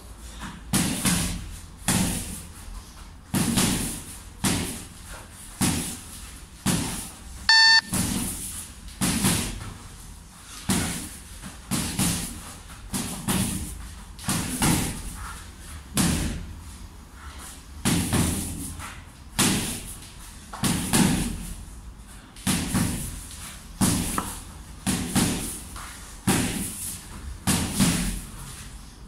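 Boxing gloves punching a hanging heavy bag, about one punch a second, each thud with a short echo of the room. A brief loud pitched tone cuts in about seven and a half seconds in.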